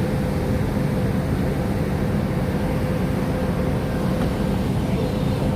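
Steady low rumble of a passenger ferry's engines under way, with a constant hum running through it.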